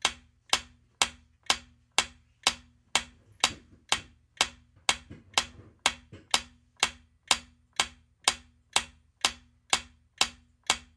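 Quiz countdown timer sound effect: clock-like ticks, evenly spaced at about two a second.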